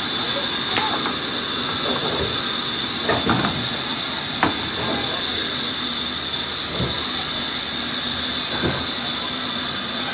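Large wood-cutting band saw running with a steady high hiss, and a few short knocks as planks are handled on its table.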